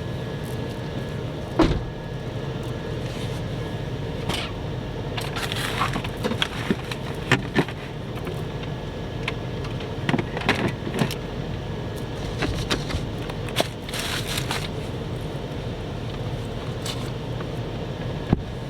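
Knocks, clicks and clatters of gear being handled and set down, over a steady low hum.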